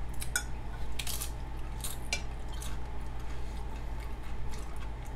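Eating utensil clinking and scraping against a food container while eating: a series of short, irregular clicks.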